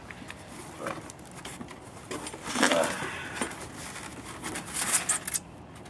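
Cardboard box flaps and a polystyrene foam packing block being handled and scraped as a shipping box is opened. The sound comes as irregular rustling and scraping with a few clicks, loudest about two and a half seconds in and again near the end.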